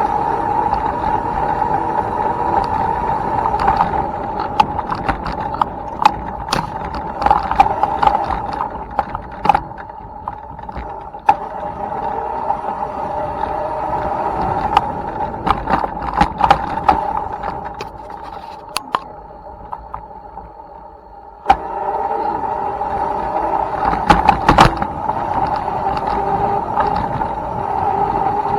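Electric dirt bike's motor whining steadily as it is ridden, with frequent rattles and sharp knocks over the trail. The whine dies away for a few seconds about two-thirds of the way through, then picks up again suddenly with a knock.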